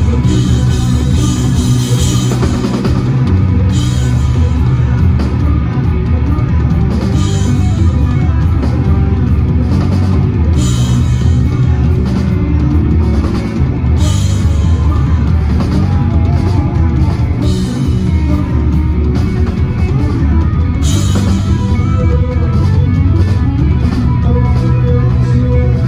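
A rock band playing live, with a drum kit and electric guitar going together loud and dense. Crash cymbals hit every few seconds.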